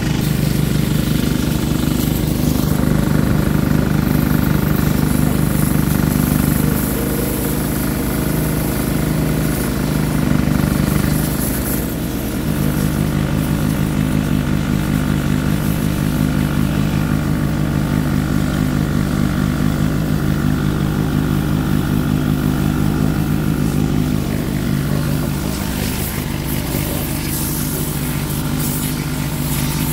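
Small petrol engine of a portable pressure-washer pump running steadily, its note shifting about seven and twelve seconds in, with a water jet spraying onto a diesel cylinder head.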